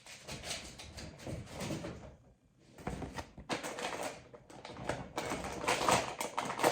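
Packaging being handled: irregular rustling and crinkling with small clicks and knocks.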